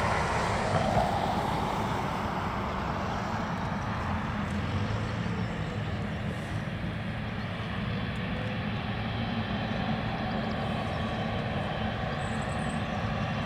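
Jet aircraft engines running at low power on the ground: a steady rumble and hiss.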